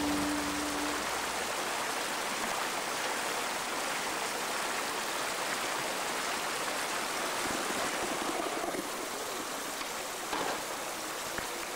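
Steady hiss of open-air street ambience as background music stops in the first second. About ten seconds in a skateboard lands with a short thump after an ollie.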